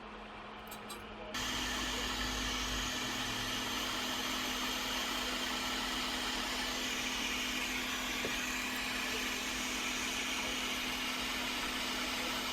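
Hot air rework gun switched on about a second in, then blowing steadily with a hiss and a constant hum, melting solder paste to attach a new charging port.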